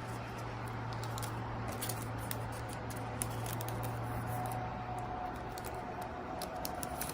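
Light handling sounds of small merchandise items being sorted, with faint scattered clicks and rustles of plastic packaging and paper, over a steady low hum that stops about five seconds in.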